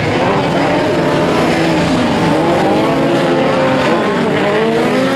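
Several Volkswagen Beetle autocross race cars' air-cooled flat-four engines revving hard, their pitches rising and falling over each other as they race round a dirt track.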